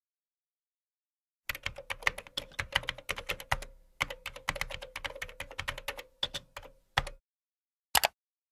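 Typing on a laptop keyboard: a quick run of key clicks starting about a second and a half in and stopping around seven seconds. About a second later comes a single louder keystroke, the Enter key being pressed.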